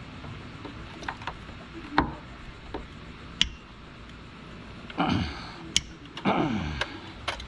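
Socket wrench and extension working on a belt tensioner mounting bolt: scattered sharp metallic clicks and clinks, with two longer falling sounds around five and six seconds in.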